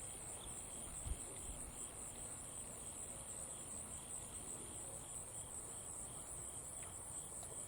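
Insects trilling in a steady high-pitched chorus, with a fainter chirp repeating evenly beneath it.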